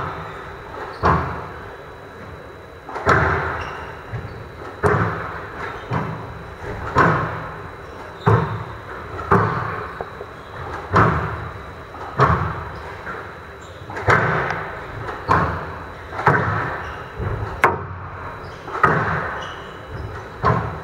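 Squash rally: the ball is struck by the rackets and slams off the court walls, giving sharp, hard impacts about once a second, each echoing briefly in the large hall.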